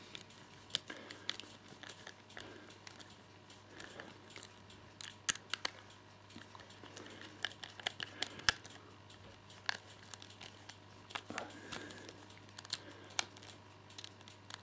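Screwdriver turning the screw of a plastic plug adapter on a charger's power supply, with handling of the plastic: scattered small clicks and scrapes at an irregular pace, a few sharper clicks about five and eight and a half seconds in.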